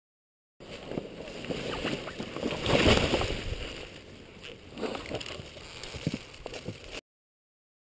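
Dirt bike and rider falling over into dry leaf litter and fallen branches: a rough crackling and rustling with many short knocks, loudest about three seconds in. The sound cuts in and cuts off abruptly.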